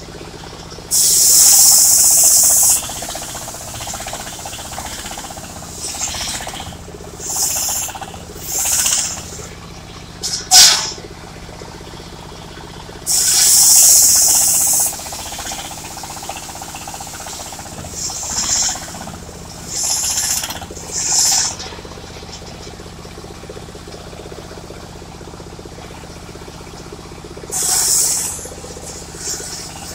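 Engine of a mobile circular sawmill running steadily, broken by repeated loud bursts of high hissing lasting one to two seconds.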